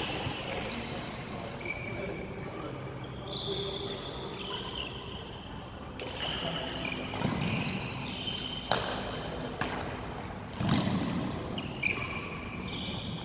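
Badminton play on a wooden sports-hall court: many short, high squeaks of sports shoes on the floor, with several sharp racket strikes on the shuttlecock at uneven intervals.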